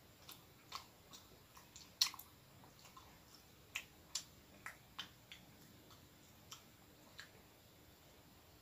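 A person chewing soft bread with the mouth making a dozen or so short wet clicks, the loudest about two seconds in and the rest spread through the next five seconds.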